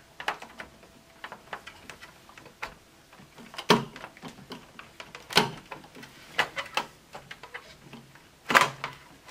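Hard plastic clicking and snapping as the snap-fit tabs and parts of a refrigerator's plastic light-and-control housing are handled and worked loose by hand. Three louder sharp snaps stand out among the small clicks: about a third of the way in, just past halfway, and near the end.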